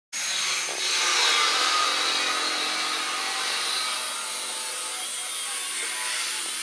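Construction noise from a guest room unit being built: a power tool running steadily with a high hiss over it, loudest in the first couple of seconds and then easing a little.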